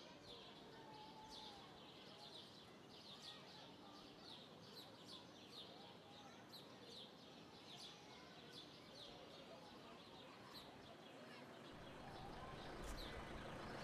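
Small birds chirping repeatedly, short high chirps a few times a second, over faint outdoor background noise. Near the end a low rumble of an approaching vehicle rises.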